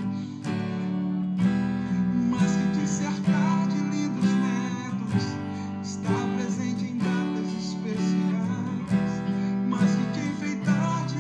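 Steel-string acoustic guitar strummed in chords, a fresh strum every half second to a second, each ringing on.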